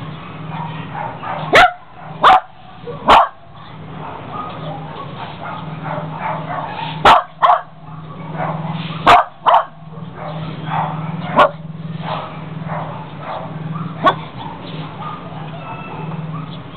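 A dog barking in short, sharp barks, about nine in all: three close together early, two pairs in the middle and two single barks later, over a steady low hum.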